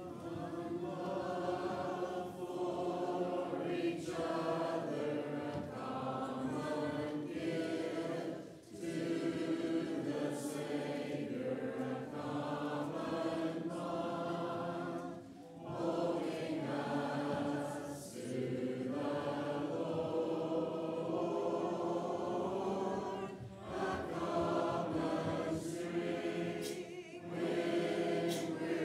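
Church congregation singing a hymn a cappella, many voices together, led by a song leader, with brief breaks between sung lines.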